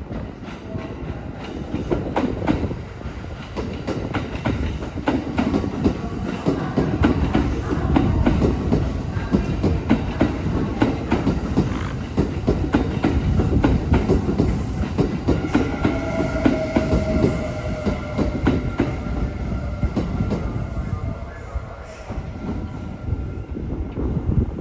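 A Kintetsu electric train passes, its wheels clacking rapidly over rail joints above a heavy rumble. From about two-thirds of the way through, a steady high squeal from the wheels rises over it and then fades near the end.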